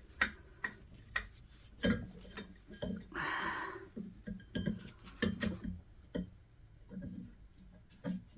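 Metal parts and hand tools clinking and knocking irregularly while a potter's wheel is being worked on by hand, with a brief scraping rustle a little after three seconds in.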